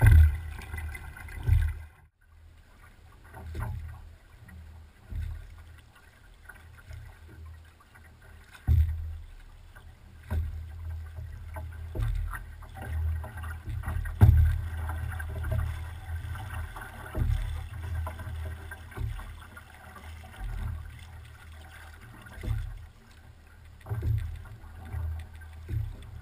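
A big voyageur canoe being paddled: paddle splashes and occasional knocks on the water, over a low rumble that swells and fades unevenly.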